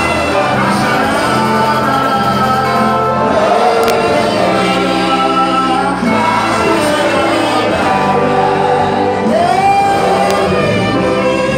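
Live gospel praise music: a lead singer on a microphone with many voices singing along over a band.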